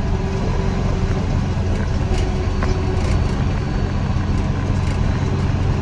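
Tractor engine running steadily under load while mowing hay, a constant low drone with no change in speed.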